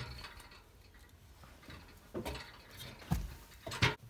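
Knocks, bumps and rustling handling noise as someone climbs with a camera in hand. The loudest knocks come about three seconds in and again near four seconds in.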